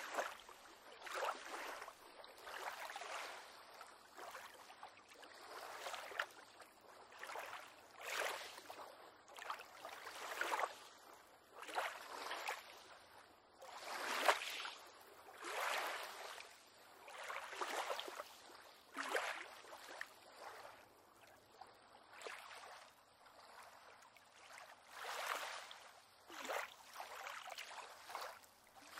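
Small waves lapping and slapping against a pier, in irregular splashy surges every second or two.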